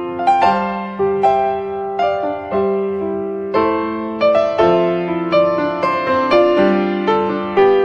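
Background piano music: a slow melody of single notes and chords, each struck about once or twice a second and dying away.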